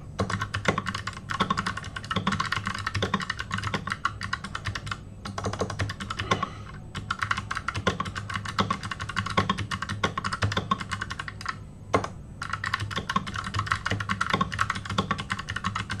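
Fast touch typing on a computer keyboard at about 67 words per minute: a rapid, steady stream of key clicks with a few brief pauses.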